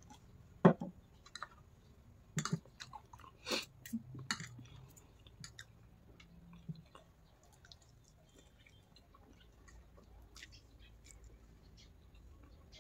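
Close-up mouth and eating sounds: a person drinks from a soda can, then chews and slurps noodles. Sharp smacks and clicks come in the first five seconds, the loudest about a second in, and then only faint clicks.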